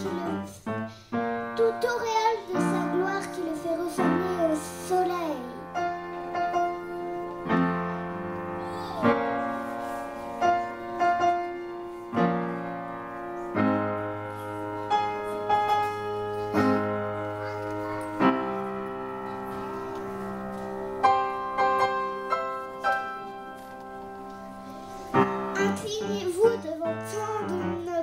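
Slow piano music, chords struck every second or two and left ringing. A child's voice is heard over the piano in the first few seconds and again near the end.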